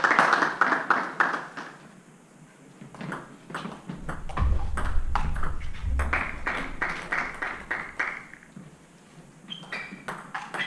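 Table tennis ball clicking off the bats and bouncing on the table, many quick sharp ticks in a rally, over stretches of a hissing background noise.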